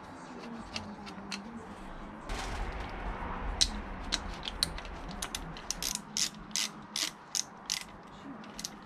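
Hand ratchet wrench clicking as it is swung back and forth to undo a bolt on an engine block. The clicks come in a few scattered strokes, then settle into an even run of about two to three clicks a second in the second half.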